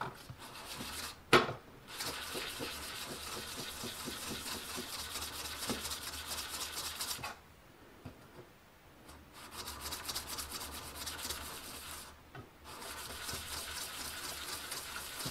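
Steel cabinet scraper rubbed back and forth flat on 500-grit abrasive paper over a glass plate, making a steady scratchy hiss. It comes in three spells, with short pauses around the middle and about three-quarters through while the blade is turned, and a light tap a little over a second in. The faces are being polished so the edges come out sharp and free of burrs, the first stage of sharpening the scraper.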